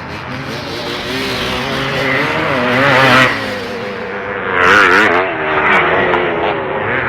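Motocross bikes racing, their engines revving up and down with the throttle. The loudest moments come about three and five seconds in.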